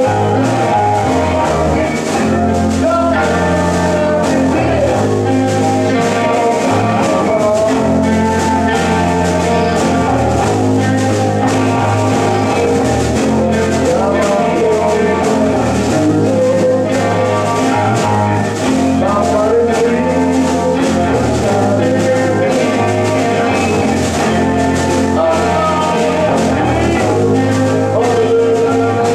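Live rock band playing: electric guitars over a drum kit, with a woman singing into a microphone.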